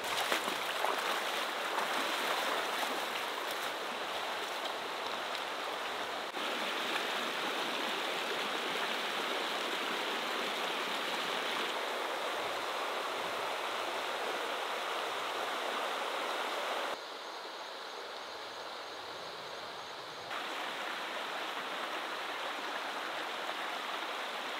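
Shallow river running over stones, a steady rush of water. The sound changes abruptly a few times, about 6, 17 and 20 seconds in, with a quieter, duller stretch between 17 and 20 seconds.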